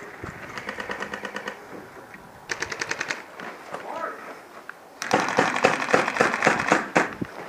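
Airsoft guns firing full-auto bursts: a faint burst, then a short louder one, then the loudest, a burst of about two seconds, each a fast, even rattle of shots.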